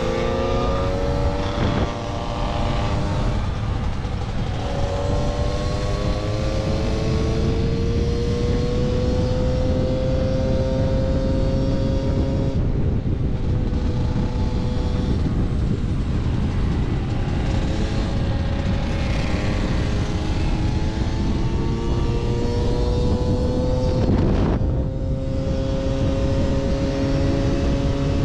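Moped engine running hard at high revs, its pitch slowly climbing as it gathers speed, with a brief dip and change of pitch about two seconds in and again around twenty-four seconds in. Heavy wind rumble on the microphone sits under it, along with other mopeds riding close by.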